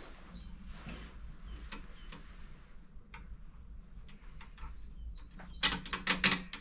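Light metal clicks from handling the scarifier's handle bar and bolts during assembly, scattered and faint at first, then a second of louder, rapid clinking and rattling near the end.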